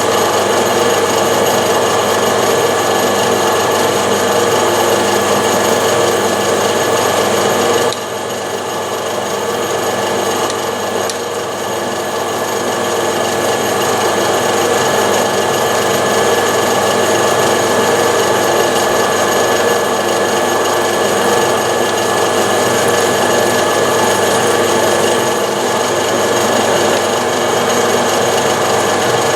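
Metal lathe running at about 250 rpm with a boring bar cutting a hole through an offset-mounted metal block in the chuck. A steady machine hum with cutting noise, dropping suddenly about eight seconds in and building back up over a few seconds.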